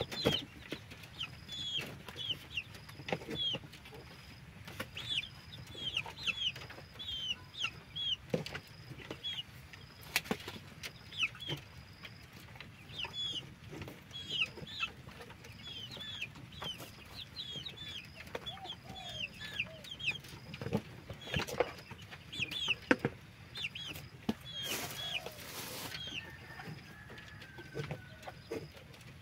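Chickens calling throughout, mostly short high falling chirps a few times a second, with a few lower clucks. A knife chops now and then, knocking on a wooden cutting board.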